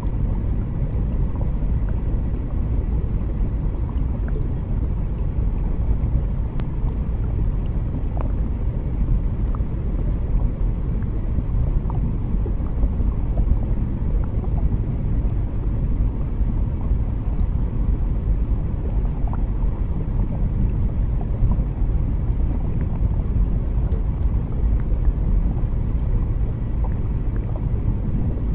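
Steady low underwater rumble, even throughout, with faint scattered ticks and crackles over it.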